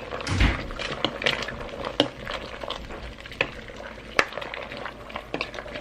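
Pot of sinigang broth at a rolling boil, with a spoon stirring it and clicking against the pot. There is a dull thump about half a second in.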